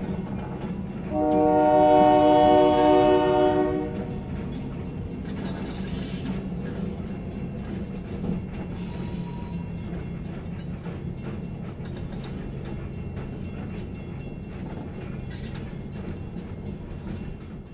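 A train horn sounds one long chord-like blast about a second in, over the steady low rumble of a freight train's boxcars rolling past.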